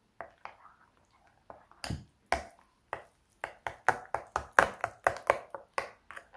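Metal spoon stirring a thick yogurt-and-spice marinade in a glass bowl, clinking against the glass in short irregular strokes. The strokes come faster in the second half.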